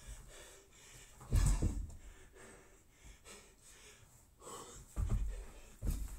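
Bar-facing burpees on a rubber gym floor: dull thuds of the body dropping to the floor and the feet landing, one about a second and a half in and two more near the end, with hard breathing between.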